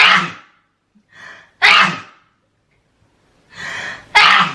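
A woman sneezing three times in a row, the second and third sneezes each preceded by a short gasping breath in; she is sick with a cold.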